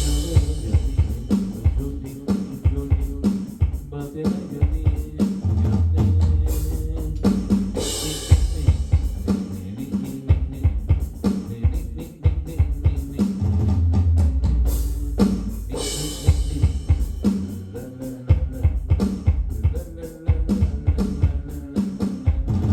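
Drum-kit beat with deep sustained bass notes and occasional cymbal crashes, in a repeating pattern of a few bars.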